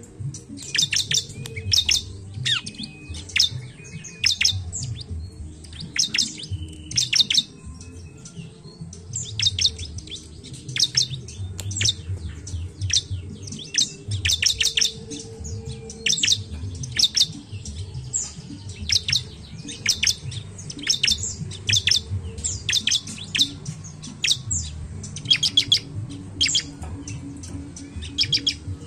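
Bar-winged prinia (ciblek) calling: runs of sharp, high chirps in quick bursts, repeated every second or two with short gaps between.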